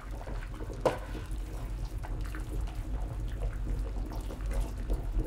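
Hands pressing and rolling moist canederli (bread-dumpling) mixture into a ball, soft wet squishing, while a pot of water bubbles on the hob over a steady low hum. One sharp knock about a second in.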